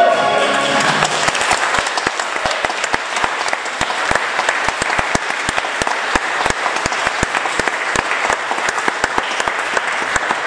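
Congregation applauding a solo song, dense steady clapping. The clapping begins over the singer's last held note and its backing music, which die away in the first second.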